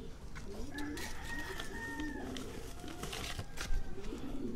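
Doves cooing over and over, with a rooster crowing faintly in the background in roughly the first two-thirds, and a few light clicks of handling.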